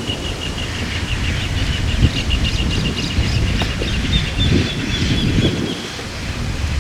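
A bird trilling: a long run of rapid, evenly repeated high notes that stops about six seconds in, over gusty wind rumbling on the microphone.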